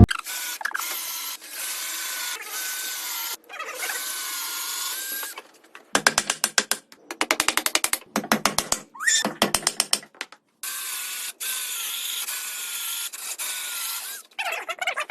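A tool at work: stretches of steady hissing noise with a faint wavering whine, broken by bursts of rapid, ratchet-like clicking.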